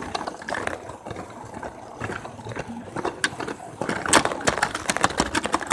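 Lego train running on plastic track, a rattling clatter of quick plastic clicks that grows denser and louder about four seconds in.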